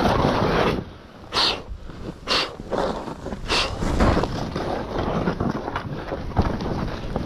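Skis turning through fresh powder: a rushing hiss of snow with wind noise on the microphone, broken by three short hissy bursts about a second apart in the first half.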